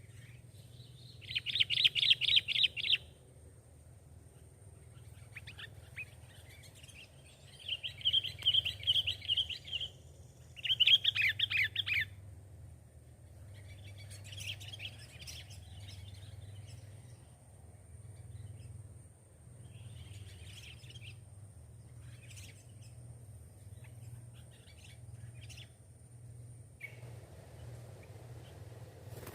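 Bird calls in three loud bursts of fast, repeated chattering notes, each lasting one to two seconds, with fainter scattered chirps between them.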